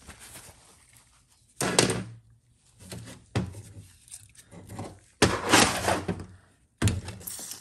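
Metal parts and tools clunking down on a steel workbench, a few separate thunks, then a hissing burst of aerosol cleaner sprayed onto a transmission governor for about a second and a half, about five seconds in, with a short second spray near the end.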